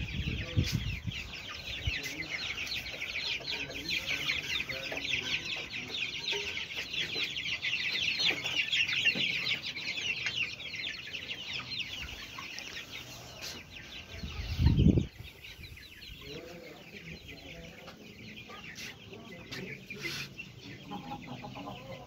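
A flock of chickens clucking and cheeping, with a dense, fast, high-pitched chatter for about the first half that then thins out to scattered calls. A single loud low thump comes about two-thirds of the way in.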